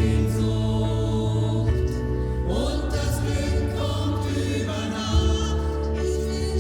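Choir singing, with sustained chords that shift every second or two.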